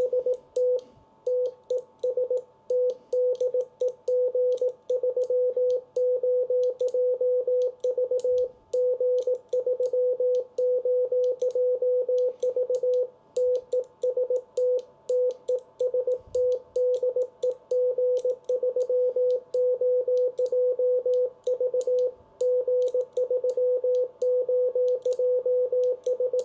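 Morse code sidetone from a ham radio transceiver: a steady mid-pitched beep keyed on and off in dots and dashes as "TEST" and a call sign are sent by hand on a brass Morse key, a CW test call to be picked up by reverse beacon receivers. The key's contacts click faintly in time with the beeps, and the sending pauses briefly twice.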